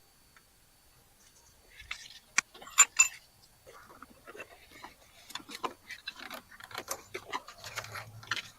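Metal clinking and rattling as a new aftermarket starter motor and hand tools are worked into a car's engine bay: a few sharp metallic clinks about two to three seconds in, then a run of small irregular clicks and scrapes.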